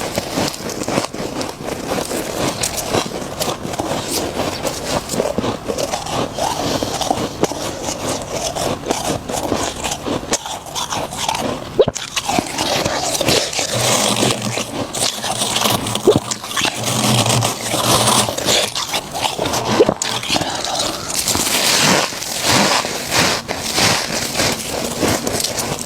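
Freezer frost crunching close to the microphone: a dense, continuous run of crisp crackles and scrapes.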